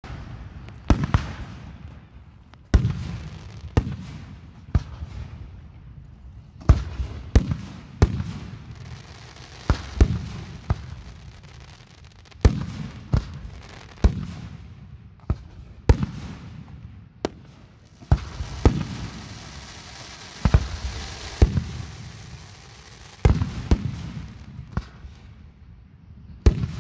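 Aerial fireworks display: shells bursting overhead with a sharp boom every second or two, each trailing off. About two-thirds of the way through comes a stretch of dense crackling.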